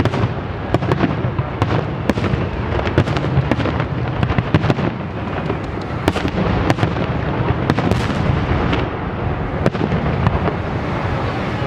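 Fireworks display: a dense, continuous barrage of shell bursts and bangs over a rolling low rumble, with many sharp cracks scattered irregularly throughout.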